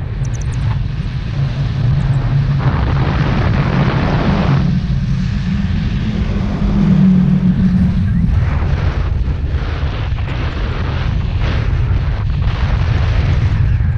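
Wind rushing over an action camera's microphone as a tandem paraglider flies: a steady deep rumble with gusts. A gust swells about three seconds in, and another, deeper one comes around seven seconds.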